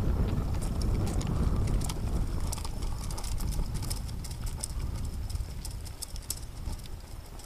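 Footsteps of several people in boots crunching quickly on a gravel road, with clicking gear, over wind rumble on the microphone; the steps grow fainter as the group moves away.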